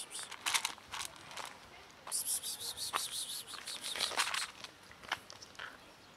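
A person calling a cat with bursts of quick, repeated hissing "pss-pss" sounds, with a few short clicks in between.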